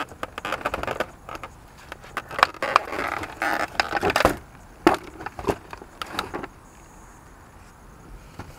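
Scattered clicks, knocks and plastic rattles from handling a boxed Seaflo water pump and lifting it out of its clear plastic packaging tray. The handling noise stops about six and a half seconds in.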